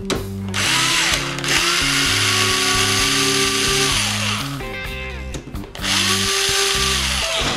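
Cordless electric screwdriver runs in two spells, driving the screws that fasten an RC crawler's four-link rods to the skid plate. The first spell starts about half a second in and lasts about four seconds; the second, shorter one comes near the end. Each spins up with a rising whine and winds down with a falling one. Background music plays underneath.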